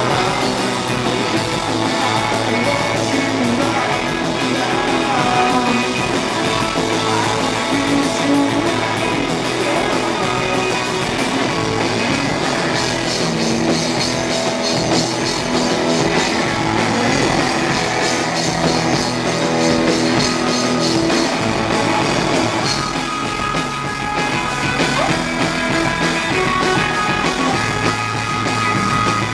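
A rock band playing live: electric guitars over a drum kit, loud and steady.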